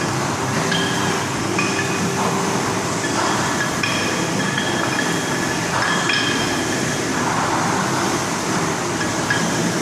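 Kettlebells hanging on bands from an Earthquake bar clinking and ringing briefly as the bar is pressed, a dozen or so short metallic rings over a steady loud background hiss.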